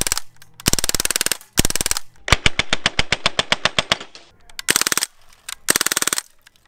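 Crosman A4-P CO2-powered BB pistol firing on full auto: about five short bursts of rapid pops separated by brief pauses, the longest, nearly two seconds, in the middle.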